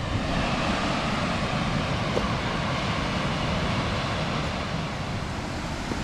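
Steady rush of falling water from High Falls on the Baptism River, heard from near the base of the falls.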